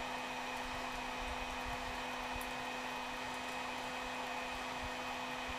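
Heat gun on its high setting blowing steadily, an even airy rush with a low hum underneath.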